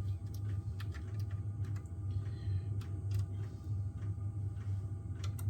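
Scattered light clicks and taps of small tools and plastic laptop parts being handled during disassembly, over a steady low hum.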